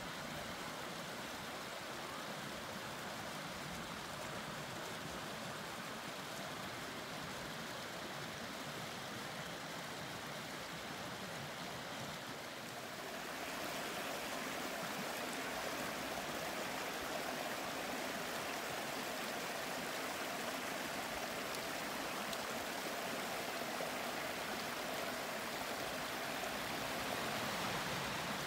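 A small woodland brook running over rocks in low cascades: a steady rush of water that turns a little louder and brighter about halfway through.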